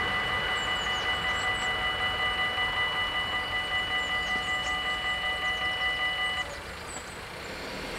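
Dutch AHOB level-crossing warning bells ringing steadily with a gently pulsing level while the barriers rise, then cutting off abruptly about six and a half seconds in as the crossing clears. Faint bird chirps can be heard throughout.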